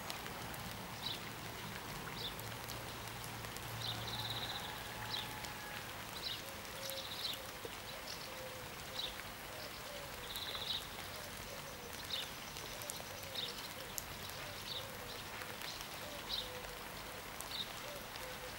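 Rain falling in the open, a steady hiss, with short high chirps repeating about once a second above it.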